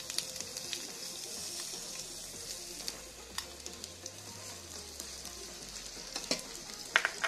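Chopped onions sizzling in hot oil in a frying pan, with a steady hiss, while a spoon stirs them and now and then clicks against the pan. The sharpest knocks come near the end.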